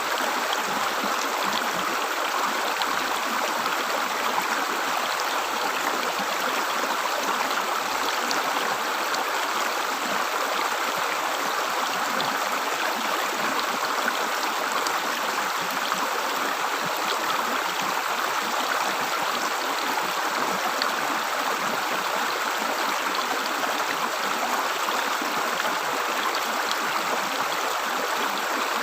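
River water gurgling and flowing steadily, an even rush with small splashy ticks.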